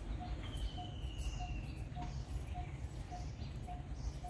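A bird repeating one short, steady note a little under twice a second. Early on a longer whistle slowly falls in pitch. Underneath is a steady low rumble.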